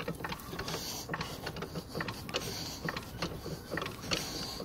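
Car jack being cranked up under the car, a steady run of small mechanical clicks and scrapes from the turning crank and screw.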